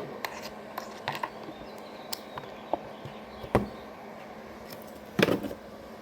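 Small clicks and taps from hands handling battery parts, with a sharper knock about three and a half seconds in and a short cluster of knocks near the end, over a faint steady hum.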